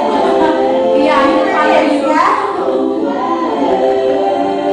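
Dance music playing, with sung vocals held over it.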